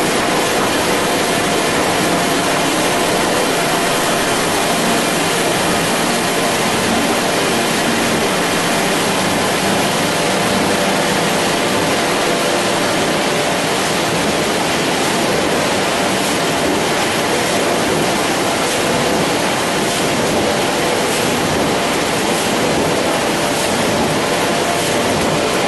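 Heidelberg Speedmaster CD 74 four-unit sheetfed offset press running: a loud, steady mechanical din with a faint hum of tones in it, and faint clicks in the second half.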